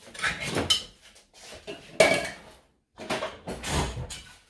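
Metal clatter and scraping as a can of coconut milk is emptied into a cooking pot, in three bursts with a sharp knock about two seconds in.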